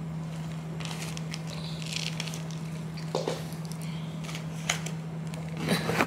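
Stacks of paper dollar bills rustling and crackling as they are handled and fanned close to the microphone, in short irregular rustles with the loudest near the end, over a steady low hum.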